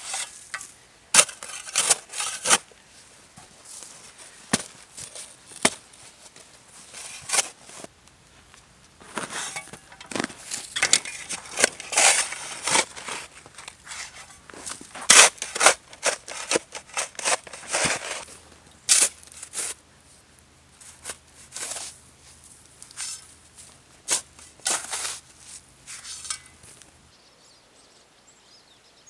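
A knife carving a small piece of wood by hand: a run of short, crisp scrapes and clicks in irregular clusters that stops a couple of seconds before the end.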